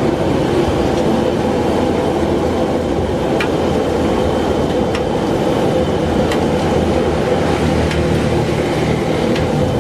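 Steady roar of a gas wok burner with a few sharp, light clicks scattered through it.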